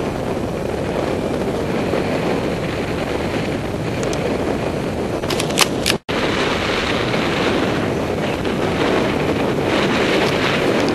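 Steady rush of airflow over a paraglider pilot's camera microphone in flight, with a few short clicks about five seconds in and a brief gap where the sound cuts out about six seconds in.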